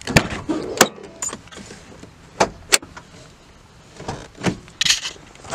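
A key working the door lock of a 1990 Honda Prelude, then sharp clicks and knocks from the door latch and the door opening. Near the end comes a few more knocks and a short rattling clatter as a release lever on the floor by the driver's seat is pulled.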